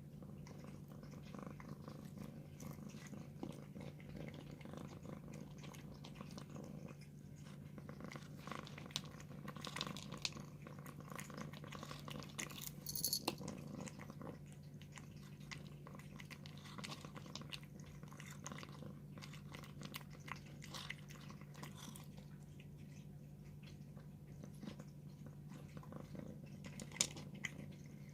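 A cat purring steadily while chewing its food, with many small clicks of eating scattered through.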